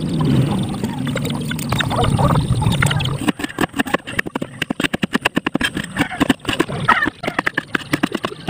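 A large knife chopping rapidly on a wooden cutting board, slicing through onion and tomato, with several quick strokes a second starting about three seconds in. Before that there is a steady low background rumble.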